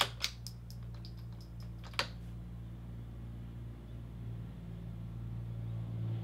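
Light mechanical clicks from the bolt of a Vudoo V-22 .22LR bolt-action rifle being worked after a shot, several quick ticks ending in a sharper click about two seconds in. A steady low hum runs underneath.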